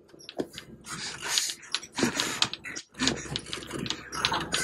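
A woman laughing quietly in short, breathy bursts.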